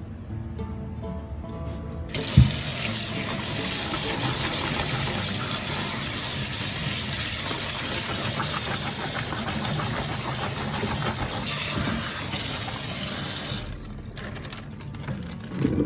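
Water running steadily from a tap into a sink, starting abruptly just after a click about two seconds in and shutting off sharply near the end.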